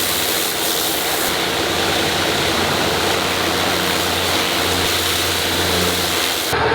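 Tractor-powered high-pressure washer (power hose) running: the water jet hisses steadily over the low, even drone of the Case tractor's engine. Near the end the spray hiss drops away and the engine runs on alone.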